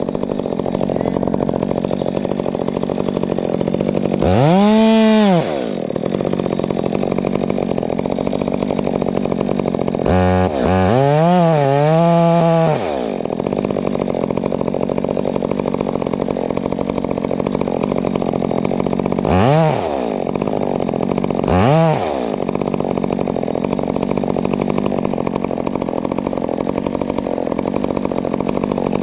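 Two-stroke chainsaw idling steadily, revved up and let back down a few times: once about five seconds in, in quick pulses around ten to thirteen seconds, and in two short blips about twenty and twenty-two seconds in.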